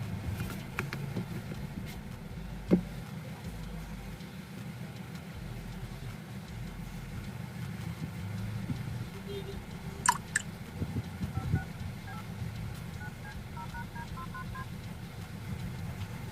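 A run of short electronic beeps at several different pitches, over a low steady rumble, with a few sharp clicks.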